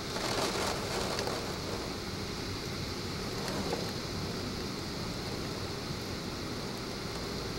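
Heavy rain pouring down steadily in a thunderstorm downpour, swelling briefly in the first second.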